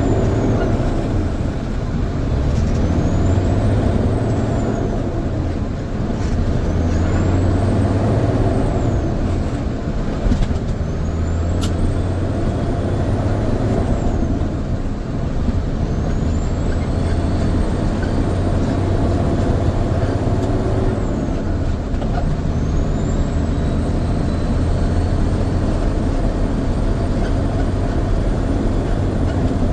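Grain truck engine running steadily as the truck drives, with a thin high whine that rises and falls about five times.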